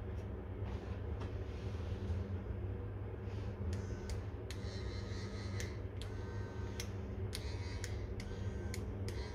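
Hands handling and fitting a small plastic gearbox housing: a scatter of light clicks and taps, mostly in the second half, over a steady low hum.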